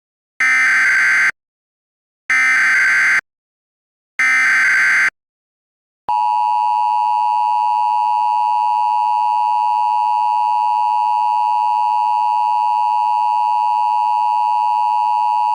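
Three short bursts of Emergency Alert System SAME digital data tones, a warbling electronic screech, about a second apart. Then the steady two-tone EAS attention signal sounds for about ten seconds.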